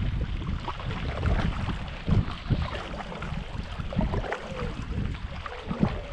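Stand-up paddleboard paddle strokes, with irregular splashes of the blade entering and leaving the water, over wind buffeting the microphone as a low rumble.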